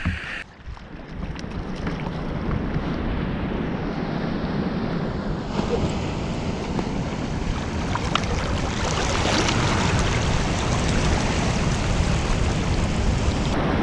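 Surf washing over rocks, with wind buffeting the microphone in a low rumble; the rush swells up after a quieter first second.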